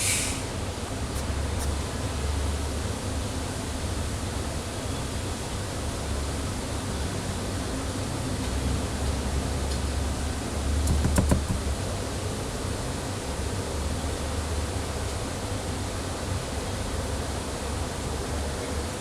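Steady hiss of room and microphone noise with a low rumble underneath. A short, sharp hissy burst comes right at the start, and a few faint clicks come about eleven seconds in.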